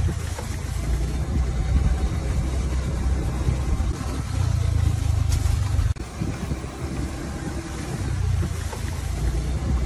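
A continuous low rumble, fluctuating in level, with a brief dropout about six seconds in.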